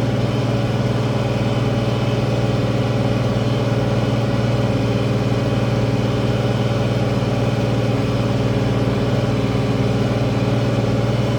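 International Harvester 1566 tractor's six-cylinder turbo diesel engine running steadily at constant speed, with a strong low, even drone.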